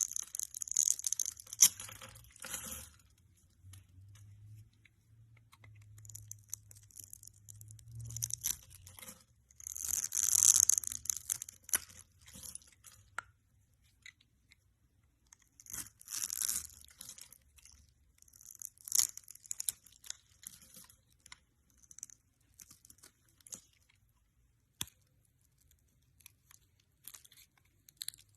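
Fidget toys being handled: bursts of crackling, tearing noise a second or two long, a few seconds apart, with scattered sharp clicks in between.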